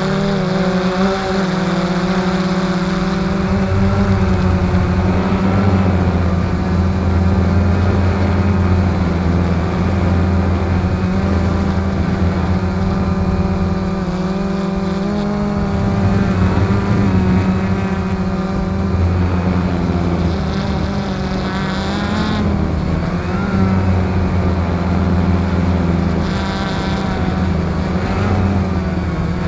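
XK X380 quadcopter's motors and propellers buzzing steadily in flight, heard close up from its onboard camera, the pitch wavering up and down as the throttle changes.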